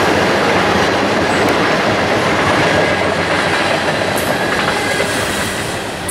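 Ballast train's loaded hopper cars and conveyor car rolling past at speed: a loud, continuous rumble and rattle of steel wheels over the rails, easing a little near the end as the last car goes by.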